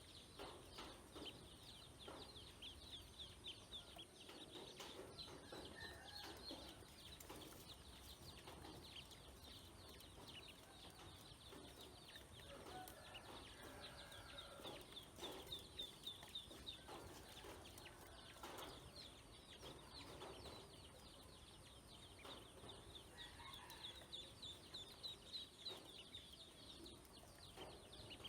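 Ducklings peeping: a constant stream of short, high peeps, with lower calls mixed in now and then.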